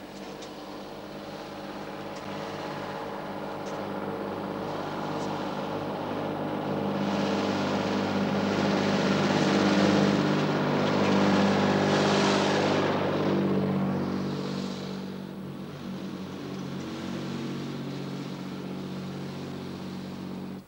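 Farm tractor engine running as the tractor approaches, passes close and drives away: the sound swells for about ten seconds, is loudest around ten to twelve seconds in, dropping slightly in pitch as it goes by, then fades.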